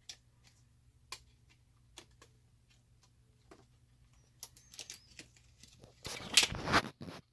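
Scattered small clicks and taps of packaging and parts being handled, then a brief, louder rustle of packaging about six seconds in.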